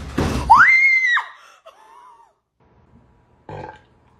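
A short rough burst, then a loud high-pitched shriek that rises, holds about half a second and falls away, followed by a softer falling cry. A brief thump comes near the end.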